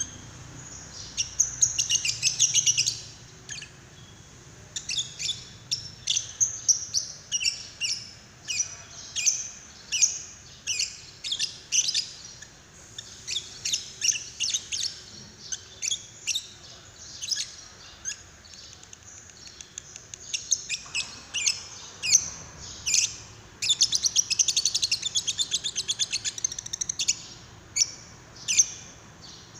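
Lovebird singing: a string of sharp, high chirps, breaking into long, fast chattering trills about two seconds in and again near the end.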